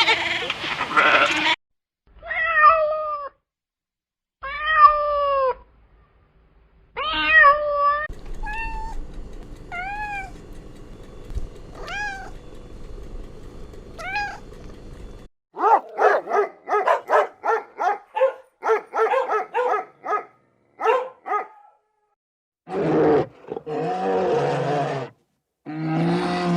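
A string of different animal calls cut one after another: a few drawn-out falling meow-like cries, then short rising calls, a run of quick repeated calls, and lower calls near the end.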